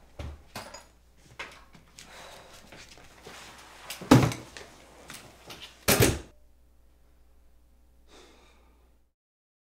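Footsteps and small handling knocks, then the room door's lever latch clacks open about four seconds in and the door bangs shut about two seconds later. A faint steady room hum follows, and the sound then cuts out.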